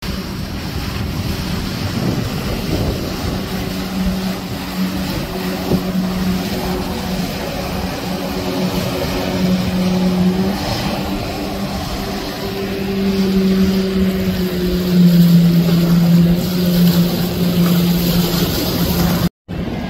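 Speedboat engines droning steadily under the rush of water as boats run at speed through choppy water. The engine note drops slightly and grows louder about three-quarters through, then the sound cuts out briefly near the end.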